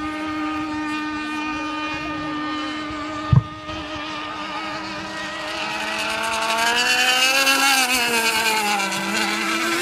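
Radio-controlled racing boat's motor whining steadily at high speed, rising and then falling in pitch as the boat runs past about seven to eight seconds in. A single sharp knock a little over three seconds in.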